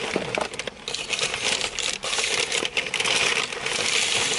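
Paper takeout bag rustling and crinkling as it is handled and rummaged through, a steady run of small crackles that grows busier over the last couple of seconds.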